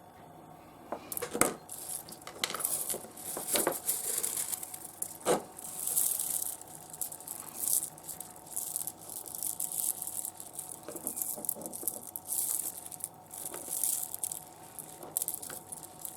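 Small pieces of rough seam opal clinking and rattling against each other and a hard surface as they are shuffled about, with a few sharper clicks. It starts about a second in.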